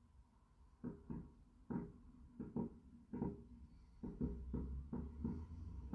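Distant fireworks bursting: an irregular run of muffled booms, starting about a second in and coming faster, over a low rumble that thickens in the second half.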